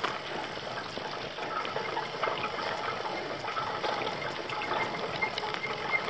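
Carrera e-bike rolling down a rough gravel woodland path: a steady hiss of tyres on grit with many small ticks and rattles.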